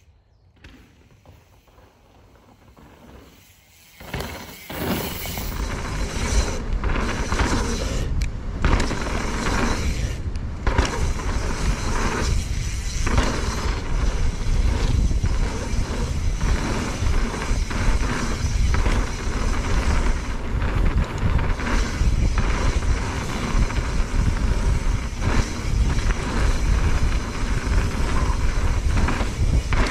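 Mountain bike ridden fast down a dirt forest trail, heard from the rider's action camera: a steady rush of wind on the microphone and tyres on dirt, with frequent knocks and rattles from the bike over bumps. It starts after about four seconds of quiet.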